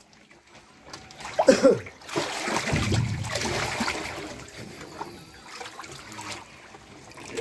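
Water splashing and sloshing in a concrete fish-holding tank as a man wades through it grabbing catla fish by hand. The splashing is loudest about two to four seconds in, then settles to quieter sloshing.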